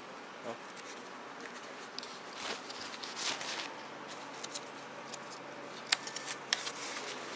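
Light rustling and a few sharp clicks of disposable paper plates and plastic cutlery being handled, over a steady low hum.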